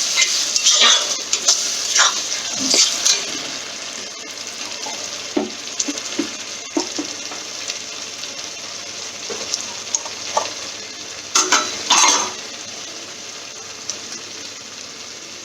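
Onion-tomato masala with freshly added tomato puree sizzling in a pan while it is stirred. A spoon scrapes and knocks against the pan several times in the first three seconds and again about eleven to twelve seconds in. The sizzle settles quieter after about four seconds.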